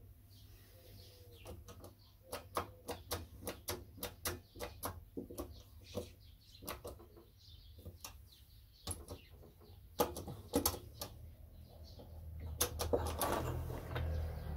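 Sharp, irregular metallic clicks and ticks, a few a second, from a shop press being worked to press a new bearing into the housing of a Mercedes auxiliary heater water pump. A few louder clicks come about ten seconds in, and a low rumble rises near the end.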